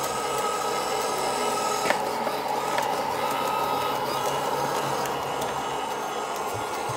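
Small robot floor cleaner running, a steady motor whir, with two light clicks a few seconds in.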